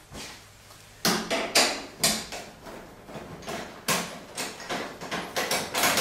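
Knocks and rattles, about two a second, as a hand works the washer's top panel and its metal hold-down bracket loose.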